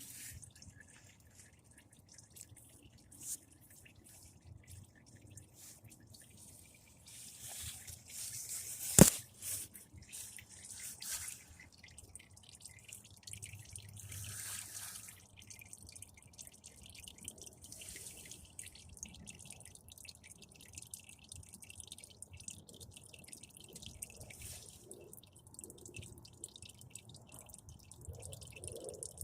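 Engine oil dripping into a drain pan during an oil change, with a few brief splashy stretches and one sharp knock about nine seconds in.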